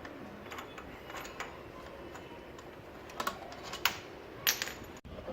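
A few sharp, separate clicks and clinks of hand tools handled against motorcycle parts, the loudest coming between about three and five seconds in.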